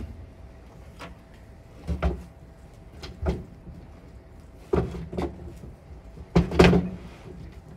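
Timber top sash of a sash and case window being fitted into its case: a series of wooden knocks and thuds as it is set in, the loudest near the end.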